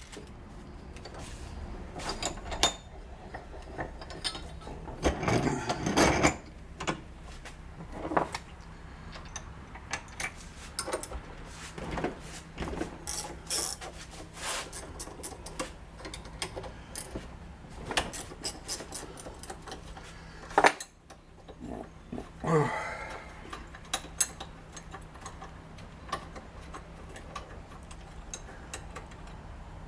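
Hand tools on metal: a ratchet wrench clicking and metal parts clinking in irregular bursts as the 12 mm bolts of a tractor air filter bracket are worked in a bench vise.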